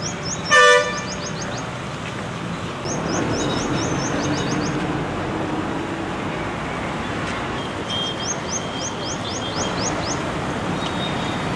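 A vehicle horn toots once, short and loud, about half a second in, over steady street traffic noise. Quick high chirps come in three runs.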